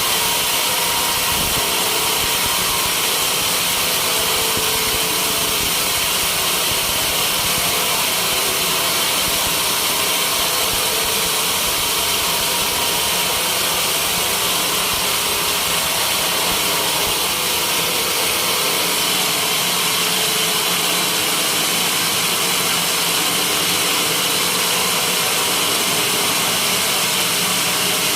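Homemade sawmill running steadily as it saws a white teak beam, a loud unbroken machine noise with no breaks.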